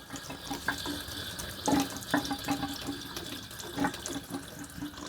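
Leftover water running and dripping out of a water supply pipe that has just been cut through with a tubing cutter, with a few small knocks.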